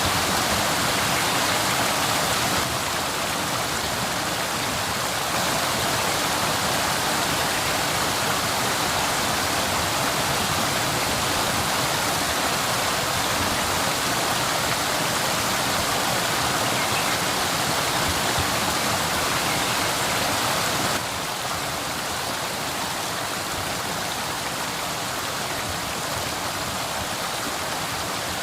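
Waterfall water rushing in a steady, even noise. The level shifts suddenly about three seconds in, again about five seconds in, and drops about three-quarters of the way through, as one waterfall recording cuts to another.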